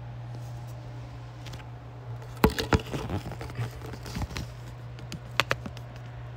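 Handling noise on a desk: a run of sharp clicks, knocks and rustles about two and a half seconds in, and two more knocks near the end. A steady low hum sits underneath.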